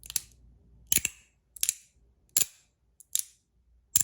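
Magnetic fidget slider snapping across from side to side: sharp metal clicks, six in all, about one every three-quarters of a second, the second a quick double click.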